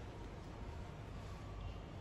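Faint, steady background noise with no distinct event.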